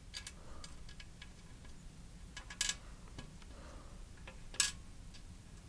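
A few sharp clicks and light taps of small objects being handled, the two loudest about two and a half and four and a half seconds in, over a faint steady low hum.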